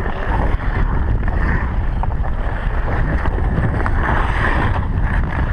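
Wind rushing over a helmet-mounted camera's microphone as its wearer skates on outdoor ice, a steady loud rumble, with skate blades scraping the ice beneath it.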